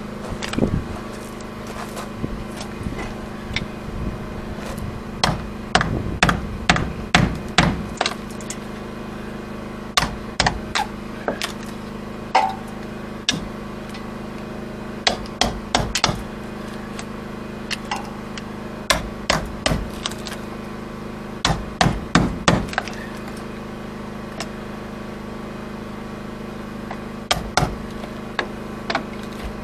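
Hammer striking a chisel driven into the planking of an old wooden boat hull, working the rotten planks loose. The blows come in quick clusters of a few sharp strikes with pauses between.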